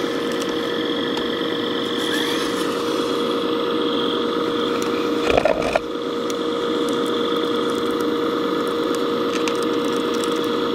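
Radio-controlled CAT 374D scale model excavator running with a steady whine, with a short louder knock about halfway through.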